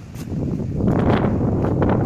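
Wind buffeting the microphone on an open beach, with surf washing in on the rocky shore; the noise swells and grows loud about half a second in.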